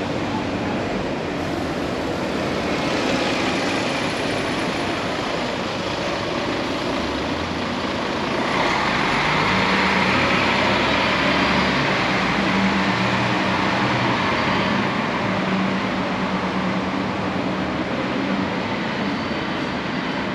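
Street traffic noise with a motor vehicle passing close by, louder from about eight seconds in until about fifteen seconds.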